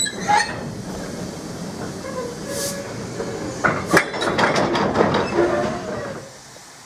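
Loose-coupled goods vans rolling slowly past on steel wheels, with a rumble and a run of clanks and knocks from the wagons about four to five and a half seconds in, and a few brief squeaks. The sound cuts off just after six seconds.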